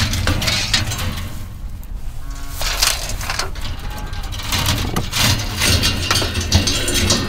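Rusty barbed wire and the steel reel of a hand-cranked fence-wire winder rattling and clinking irregularly as the wound coil is worked off the spool.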